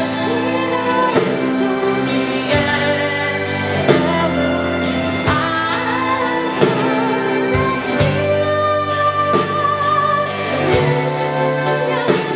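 Rock band playing a song live, with a singer holding long, wavering sung notes over the band.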